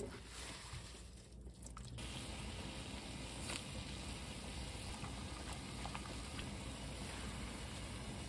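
Wet perilla sprouts handled in a metal colander for about two seconds, then water at a rolling boil in a wide pan, bubbling steadily with a few faint ticks.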